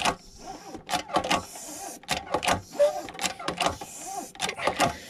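Hand-lever hydrostatic pressure test pump being worked stroke after stroke, clacking and creaking about twice a second as it forces water into a steel tank to raise the pressure.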